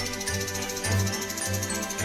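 Background Christmas-style music with jingle bells over a steady bass beat, about two beats a second.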